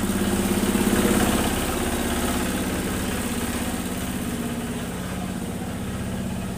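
An engine running steadily at idle: a low hum with a fast, even pulse, a little louder in the first second or so.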